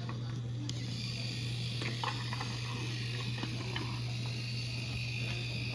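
Battery-powered toy train running on wooden track: a steady motor whir with hiss and a few scattered clicks.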